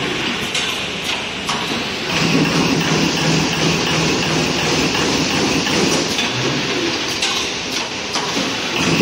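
Steady mechanical din of running factory machinery, with a few faint clicks.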